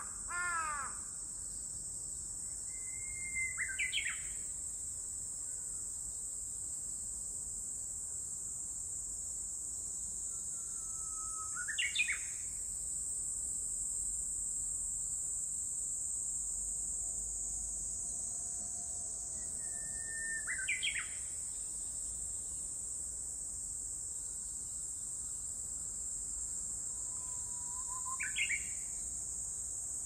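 Japanese bush warbler (uguisu) singing its "hoo-hokekyo" song four times, roughly every eight seconds: each song is a long held whistle that breaks into a quick rising-and-falling flourish. A steady high drone of insects runs underneath.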